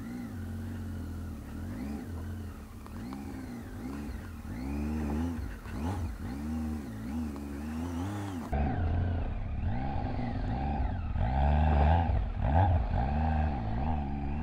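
Motorcycle engine revving up and down again and again as the throttle is worked in short bursts over rough, rutted dirt. For the first half this is the rider's own Triumph Tiger 800 three-cylinder engine. About halfway through the sound cuts to a louder engine, still rising and falling in revs.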